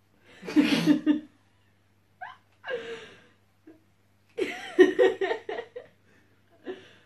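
A man laughing in four short bouts.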